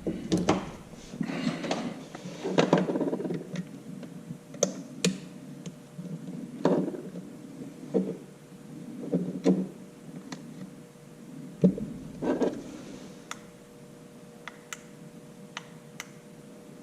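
Irregular knocks and clunks from handling a motorized pan-tilt camera head with a camera mounted on it, roughly one every second, thinning to light ticks in the last few seconds. A faint steady hum comes in about twelve seconds in.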